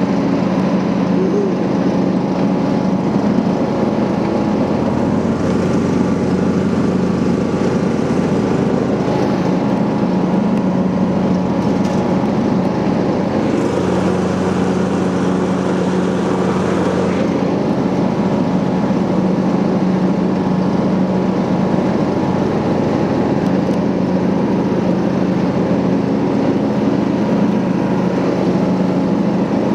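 Riding lawn mower engine running steadily under way, its pitch holding level.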